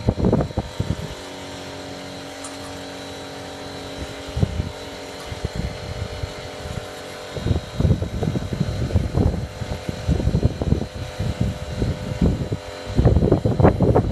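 A motor hums steadily. From about halfway through, irregular low rumbling gusts that fit wind on the microphone come in and grow louder near the end.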